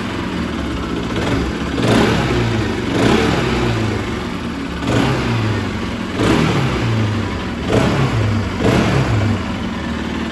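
Bajaj Pulsar RS 200's single-cylinder engine running just after a full rebuild with a replaced crankshaft, its throttle blipped about six times in quick revs over a steady idle.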